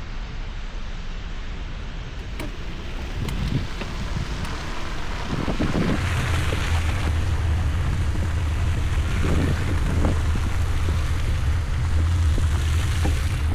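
Wind buffeting the action camera's microphone on a bike ride through a snowstorm: a steady rushing noise with a deep rumble that grows louder about six seconds in.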